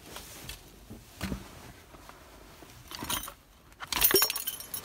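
Belongings being handled on a car seat: a canvas tote bag rustling and bumping, with small knocks. About four seconds in, keys start jingling on a lanyard as they are picked up.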